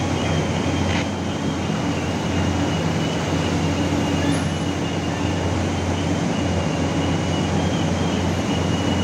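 Heavy diesel machinery running steadily under load: a wheel loader and a Hitachi EX1200 hydraulic excavator working coal, a deep engine drone with a thin steady high whine over it.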